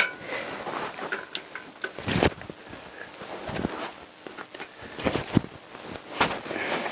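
Hand tools on the engine mounting bolts of a Honda CBR1000F: a socket, ratchet and torque wrench clinking and clicking against metal as a 14 mm nut is tightened. Sharp metal clicks come about two seconds in, then twice more near the end.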